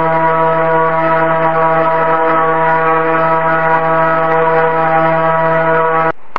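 Spindle of a home-built plywood CNC milling machine running while its carbide end mill cuts aluminium: a steady whine with many overtones. It cuts off abruptly near the end, leaving a faint hiss.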